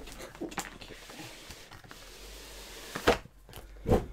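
Cardboard handling: a graphics card's retail box being tipped and its black inner box slid out, with rustling and scraping, then two thumps about a second apart near the end.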